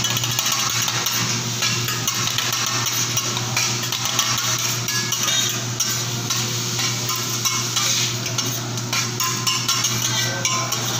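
Rice and chopped meat sizzling on a steel teppanyaki griddle while the chef's metal spatula scrapes and taps the plate, chopping and stirring. The metal-on-steel clicks come irregularly over a steady sizzle.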